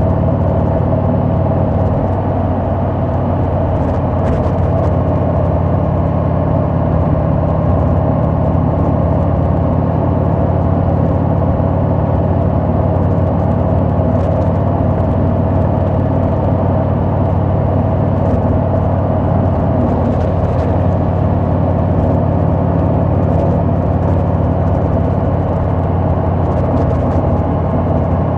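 Harley-Davidson Sport Glide's Milwaukee-Eight 107 V-twin running at a steady cruising speed, its engine and exhaust heard from the moving bike over a haze of wind and road noise.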